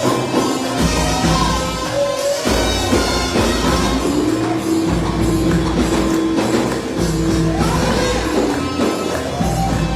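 Egyptian popular music with a steady tambourine beat; the melody holds one long note in the middle.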